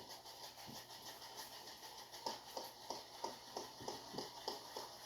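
Handheld wrist gyro ball running, its spinning rotor clicking rhythmically in its track as it is worked by the wrist, about four clicks a second.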